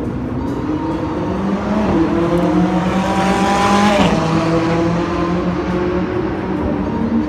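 A supercar's engine pulling hard as the car drives past. It grows louder with a slowly rising pitch, then the whole engine note drops sharply about four seconds in as the car passes and draws away.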